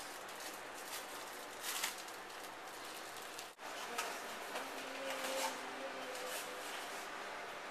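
Kitchen handling noises: a plastic bag rustling and items being moved about on the counter. The sound breaks off abruptly about three and a half seconds in, then the handling goes on.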